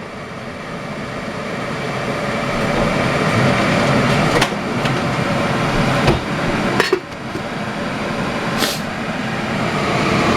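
Covered pot of stew bubbling on the stove, a steady hiss growing louder, with a few sharp clicks.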